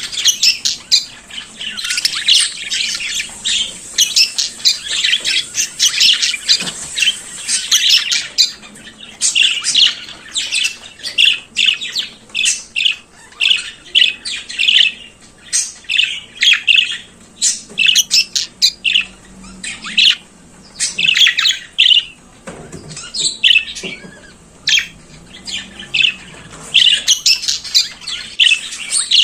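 Budgerigars chattering and warbling, a fast run of short chirps, squawks and whistles that goes on without a break.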